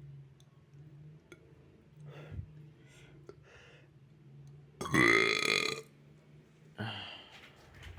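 A boy burping: one loud burp lasting about a second, about five seconds in.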